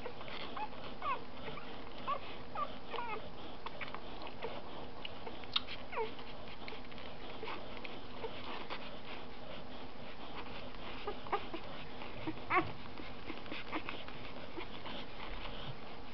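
Three-day-old Eurasier–Samoyed puppies nursing, giving scattered short high squeaks and whimpers, with a few sharp clicks about five and twelve seconds in.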